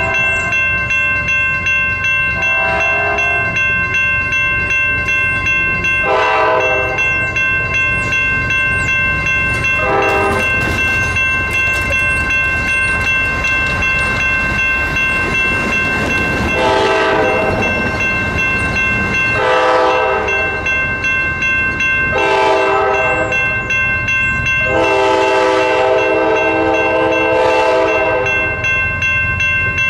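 A diesel locomotive's multi-chime horn sounds about nine times, mostly short blasts with one long blast of about three seconds near the end, over the steady rumble of the moving train. A grade-crossing warning bell rings steadily underneath.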